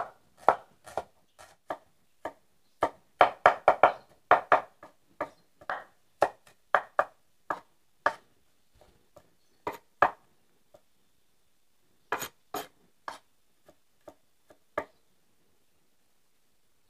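Broad-bladed kitchen knife chopping garlic and shallots on a wooden cutting board: irregular knocks of the blade on the board, with a quick run of them about three seconds in. They thin out and stop about two seconds before the end.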